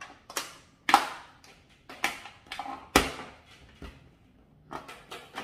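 Plastic diffuser cover being pressed and snapped into the rail of an LED corner floor lamp: a string of sharp pops and clicks, the loudest about one and three seconds in. Each pop is the sign that that section of the cover has seated in the rail.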